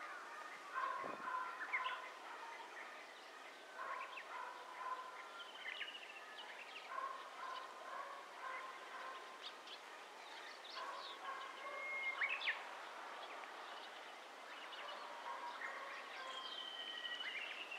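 Birds singing and calling: a scatter of short chirps and whistled notes, some sliding up or down, with a lower note that recurs every few seconds, over a faint steady hiss.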